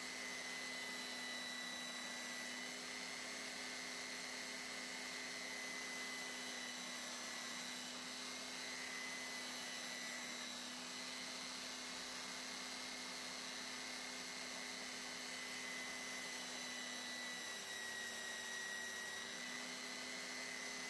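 Handheld electric belt sander mounted upright on a bench, running steadily with a low hum and a high whine while a small wood block is held against the belt to round over its edges.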